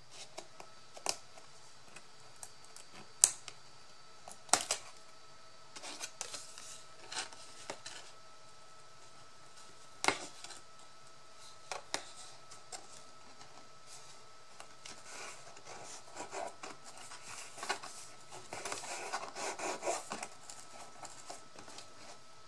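Paper and cardboard being handled and worked by hand: scattered light taps and clicks, with a busier stretch of rustling and scraping near the end.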